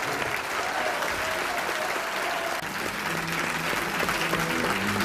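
Audience applauding after a song. About two and a half seconds in, the band starts holding low sustained notes under the applause.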